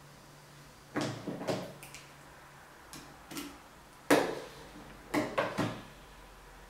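Short scrapes and knocks from handling a cutlass grip by hand. They come in small groups: three about a second in, a couple of fainter ones after three seconds, the loudest just after four seconds, and three more quickly after five seconds.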